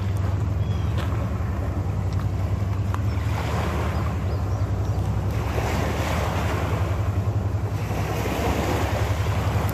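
A boat engine running with a deep, steady throb, over a rush of water wash that swells from about three seconds in and stays strong until near the end.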